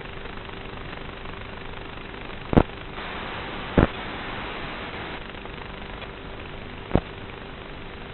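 Steady static hiss with a faint steady hum from an analog FPV video receiver's recorded audio, broken by three sharp pops: two close together a little after two and a half seconds and near four seconds in, and one near the end.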